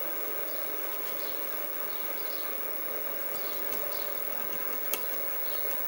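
Sieg SX2P mini mill running steadily as a small drill bit feeds down through a steam engine cylinder to drill an angled steam passage, not yet broken through. There is one sharp click about five seconds in.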